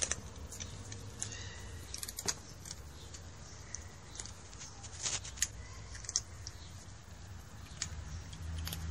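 A cat crunching dry kibble: irregular sharp crunches and clicks, with a few louder ones a little past the middle, over a low steady rumble.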